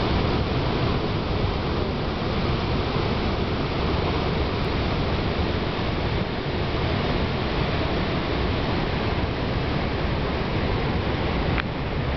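Niagara Falls: a huge volume of water pouring over the brink and crashing into the gorge, a steady, even rushing noise.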